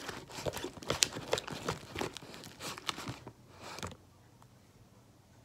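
Fluffy slime of glue, shaving cream and contact solution being mixed by hand, just after more contact solution was added: quick irregular clicks and crackles that stop about four seconds in.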